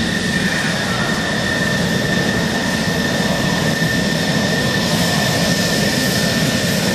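Twin jet engines of a Grumman F-14 Tomcat running at low taxi power: a steady rumble with a steady high whine over it.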